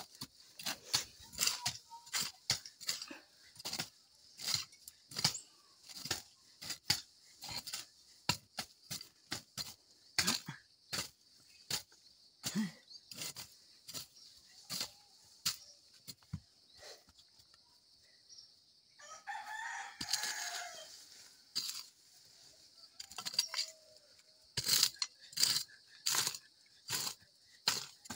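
Short-handled hoes chopping and scraping grass and wet soil off a footpath, in repeated strokes roughly one to two a second. A rooster crows once, about two-thirds of the way through.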